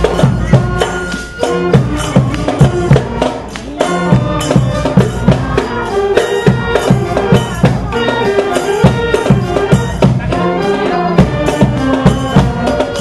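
Marching band playing a lively tune: saxophones and other wind instruments carrying the melody over a steady percussion beat.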